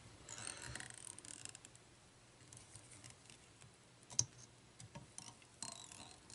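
Faint fly-tying handling sounds: chenille and thread rustling as they are wrapped onto the hook in the vise, with a few light clicks from the metal bobbin holder and one sharper click about four seconds in.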